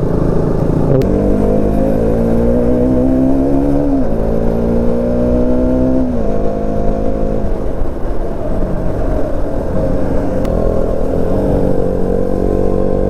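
Motorcycle engine accelerating through the gears: its pitch climbs, drops at upshifts about four and six seconds in, then holds fairly steady at cruising speed, over a constant low rumble.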